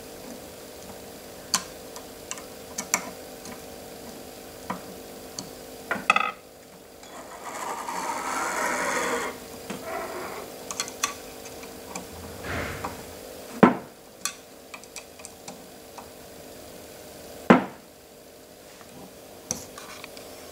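Small metal clicks and scrapes of a ball-end hex screwdriver tightening bearing-block screws on an aluminium C-beam actuator. About seven seconds in comes a rushing whir of about two and a half seconds that rises and falls, then two sharp knocks later on.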